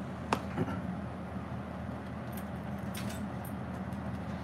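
A few light clicks and small metallic taps of handling over a steady low electrical hum, which is typical of a TIG welder's transformer left switched on between welds.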